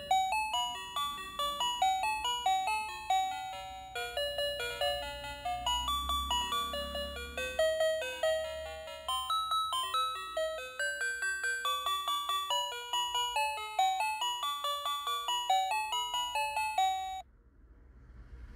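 Battery-operated dancing duck toy playing an electronic melody of quick, bell-like chiming notes, which stops abruptly about seventeen seconds in.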